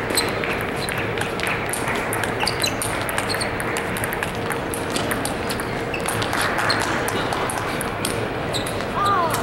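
Table tennis balls clicking off paddles and tables in quick, irregular succession, from the rally and neighbouring tables, over the steady hubbub of a big hall. A short falling squeak sounds near the end.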